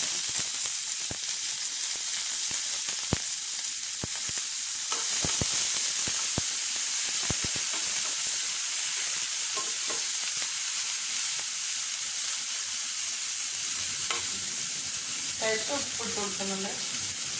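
Chopped onions, curry leaves and green chillies sizzling in hot oil in a nonstick frying pan: a steady hiss. A spatula clicks and scrapes against the pan as they are stirred, mostly in the first half.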